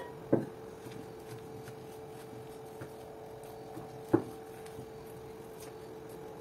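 Wooden spoon stirring a wet tapioca-and-egg batter in a stainless steel bowl, with a knock just after the start and a louder, sharper knock about four seconds in, over a steady hum.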